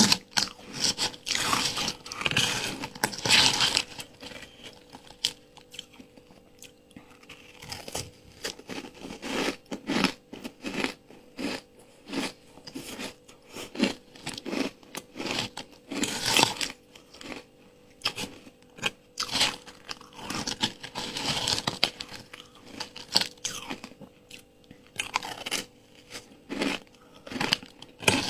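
Ice being bitten and chewed close to the microphone: sharp, irregular crunches that come in louder clusters every few seconds.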